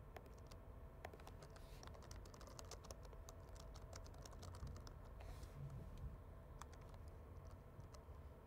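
Faint computer keyboard typing: a run of quick key clicks that thins out after about five seconds.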